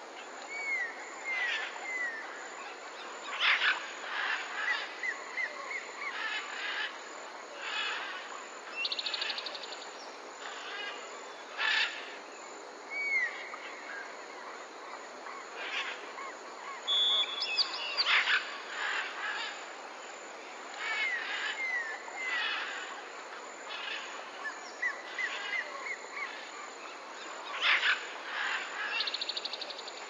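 Several wild birds calling over a steady background hiss: short whistled notes that rise and fall, loud sharp calls every few seconds, and a fast buzzy rattle twice.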